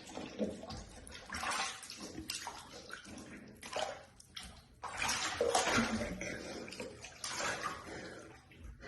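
Bath water sloshing and splashing in a bathtub in irregular bursts, loudest about halfway through.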